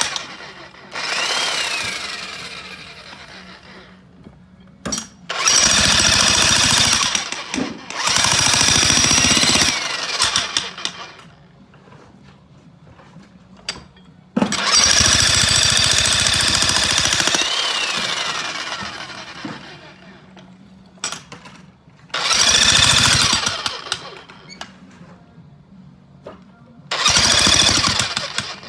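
Jackhammer hammering in about six bursts of a few seconds each, with short pauses between; the longest burst, about halfway through, lasts some four to five seconds.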